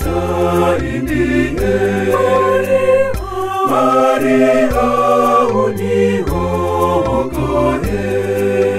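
Swahili gospel song: voices singing a sliding melody over a backing track with steady bass notes and a regular beat.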